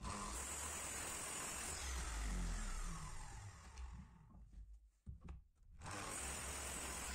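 Electric miter saw cutting a wooden board: the motor runs with the blade in the wood, then winds down with a falling whine and stops about four seconds in. A few clicks follow, and near the end the saw starts up again for another cut.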